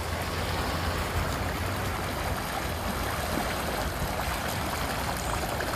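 Rainwater runoff rushing hard along a street gutter and over the curb, a steady churning rush of water.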